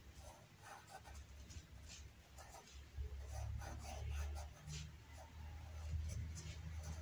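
Pencil writing on paper: faint, short scratching strokes of the lead across the page as a word is written out. A low hum sets in about three seconds in.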